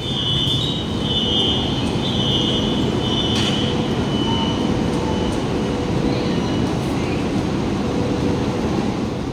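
High-speed train at an underground platform: a steady, echoing rumble with a high-pitched squeal, likely the brakes as the train comes to a stop, for about the first four seconds.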